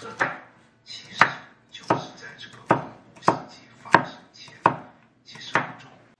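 Kitchen knife chopping ingredients on a cutting board: about nine sharp, unhurried strokes, roughly one every two-thirds of a second.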